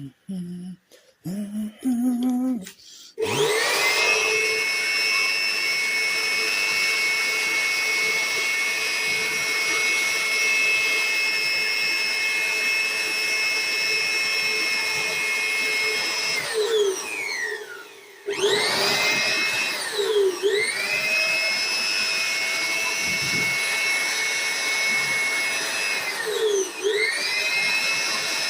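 Leaf blower switched on about three seconds in and running with a steady high whine. About halfway through it winds down almost to a stop, then spins back up, dipping briefly twice before running on.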